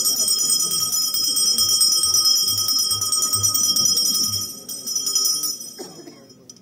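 A bell ringing continuously with steady high tones, fading out about six seconds in.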